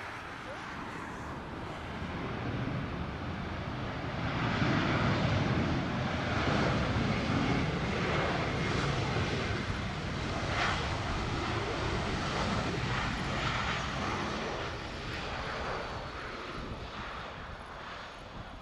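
Airbus A320-214's CFM56 turbofan engines on the landing rollout: a broad rushing jet noise that swells about four seconds in, holds, and then slowly eases off. A faint high whine slides downward in the second half.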